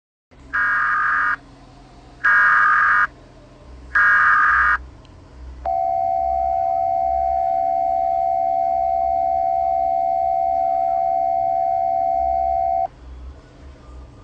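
Emergency Alert System header: three short bursts of warbling digital data tones, about a second apart, then a steady alert tone held for about seven seconds before it cuts off.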